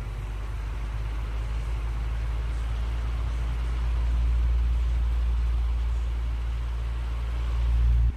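Electric fan running close by, its air stream rumbling on the microphone and swelling and easing; the rumble cuts off suddenly at the end.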